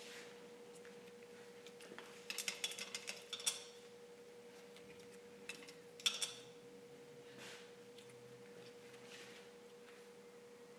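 A faint, steady hum at one pitch, with two short runs of light clicks and clinks, about two seconds in and again near six seconds, and a couple of faint soft swishes later on.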